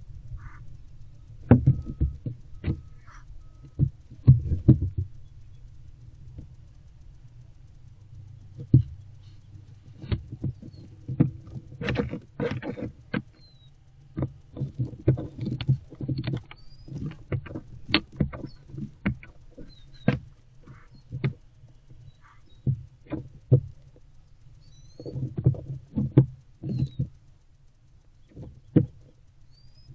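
Barn owlets shifting about in a wooden nest box: irregular taps, knocks and scratchy scrapes, some in quick clusters, over a steady low hum.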